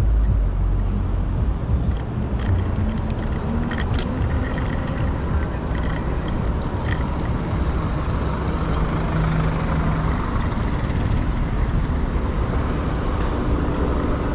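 Wind rushing over the microphone of a moving electric scooter, mixed with city street traffic and road noise. A passing vehicle's engine hum rises out of it near the middle.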